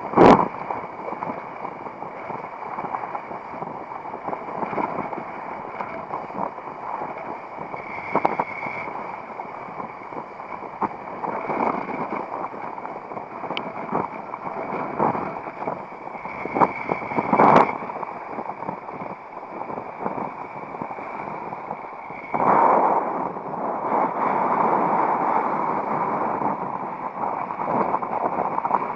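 Strong wind rushing over the microphone while a kiteboard skims across water, with water hissing and splashing under the board and a few sharp knocks. The rush gets louder about three quarters of the way through.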